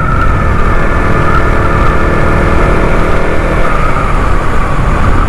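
Motorcycle engine running steadily at cruising speed while riding, a continuous loud drone.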